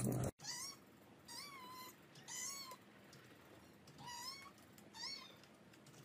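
Kitten mewing: five short, high-pitched mews, each rising then falling in pitch, spaced about a second apart. A split second of louder whining cuts off abruptly at the very start.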